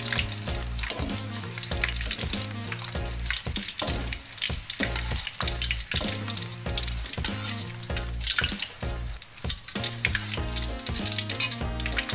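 Hot cooking oil sizzling and crackling in a wok as deep-fried peanuts are lifted out with a wire strainer, over background music with a steady low beat.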